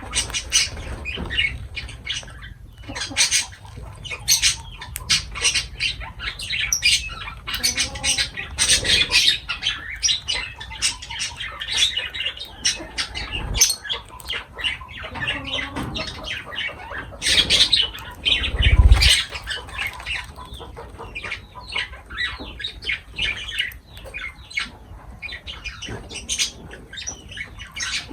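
Lovebirds chattering: a dense run of short, shrill chirps and squawks. Two low thumps break in, the louder about two-thirds of the way through.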